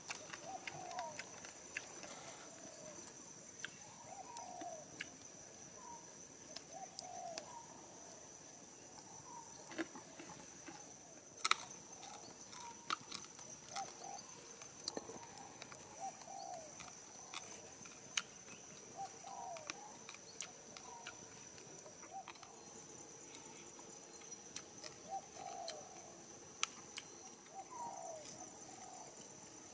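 Forest birds calling in short, repeated curving phrases over a steady high-pitched whine, with scattered sharp crackles from a wood campfire and one louder crack about a third of the way in.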